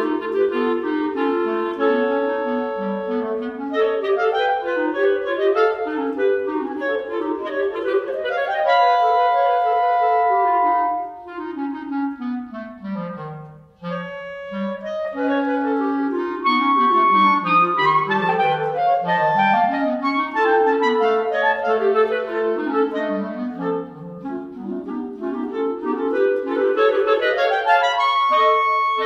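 Clarinet trio playing chamber music: quick rising and falling runs weave under and over held notes. The playing thins out and grows quieter about halfway through, then the runs pick up again.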